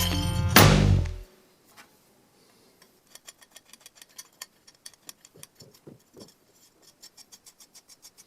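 Rock music ends about a second in. Then come faint, quick scratchy strokes, about three or four a second, from a bicycle part being rubbed or scrubbed by hand.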